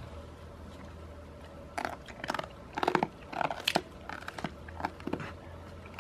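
Goats crunching and chewing treats taken from a hand: an irregular run of sharp crunches and bites, about two seconds in and lasting some three seconds.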